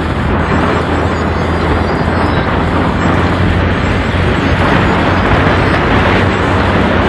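Steady vehicle engine hum mixed with road and wind noise, heard from on board a vehicle moving along a street.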